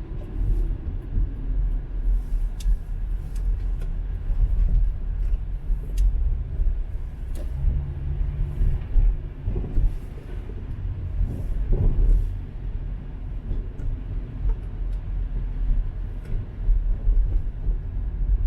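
Car driving, heard from inside the cabin: a steady low rumble of engine and road noise, with a few faint scattered clicks.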